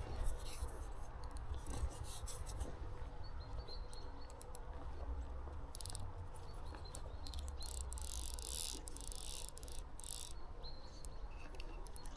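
Outdoor riverside ambience: a steady low rumble, intermittent high hissing rustles and a few faint bird chirps.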